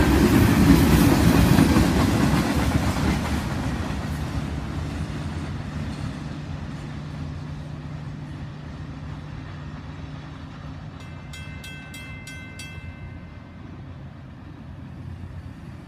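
Freight train cars (tank cars) rumbling and clacking past on the rails at speed; the sound fades over the first few seconds as the end of the train goes by and recedes. A few short high beeps sound about eleven to thirteen seconds in.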